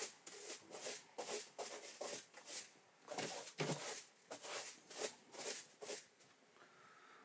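A small hand broom sweeping out the floor of a mini excavator's cab in quick, brushy strokes, about three a second, stopping about six seconds in.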